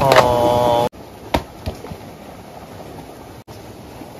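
A drawn-out vocal exclamation for just under a second, cut off abruptly. Then quiet outdoor background with a few light knocks of a dry log being handled.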